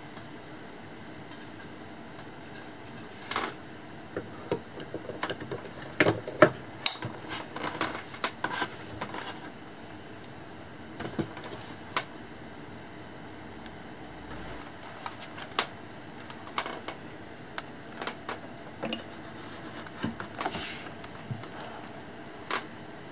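Plastic clicks and knocks of a KOORUI 22N1 monitor stand being fitted: the stand neck is pushed into its slot on the back of the monitor and the base is attached. The clicks come in irregular clusters, loudest and thickest about six to nine seconds in, over a steady background hiss.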